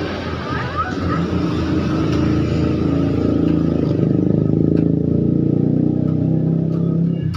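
A motor vehicle's engine running steadily close by, a loud low hum that grows a little and cuts off abruptly near the end. A short chirping bird call sounds about half a second in.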